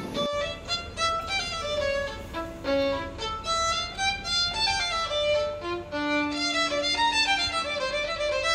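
Violin music: a fast melody of short notes and running scales, with a lower note held for about a second past the middle.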